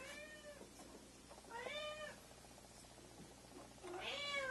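A cat meowing three times, each a short call that rises and falls in pitch, about two seconds apart.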